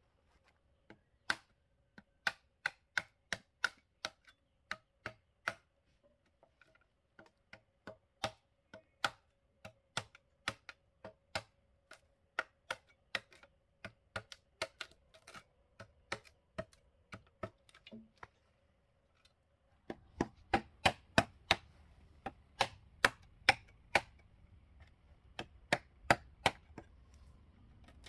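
Repeated sharp knocks of a hand tool striking wood or bamboo, about two or three a second in uneven runs, with a short pause about two-thirds of the way through.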